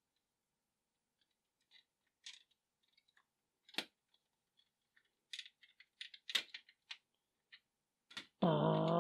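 Scattered light clicks and taps of small plastic model parts being handled and pressed into place: an air cleaner fitted onto the engine of a 1:18 scale diecast car. A man starts speaking near the end.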